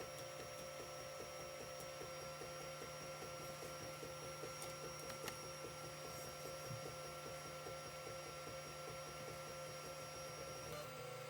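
Creality CR-10 3D printer's stepper motors driving the print head during a print: a steady whine with a quick, regular pulsing. The motion stops near the end, leaving a low hum.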